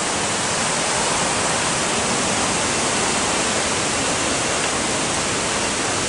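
Pha Suea waterfall, a steady, even rush of falling water.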